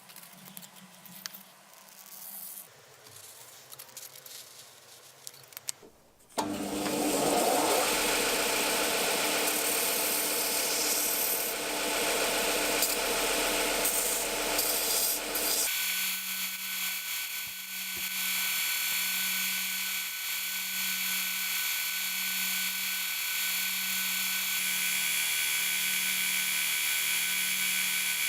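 A few light clicks, then a power tool starts about six seconds in and runs against the workpiece with a loud rubbing, abrasive sound. About ten seconds later its sound changes and then carries on steadily with a faint pulsing hum.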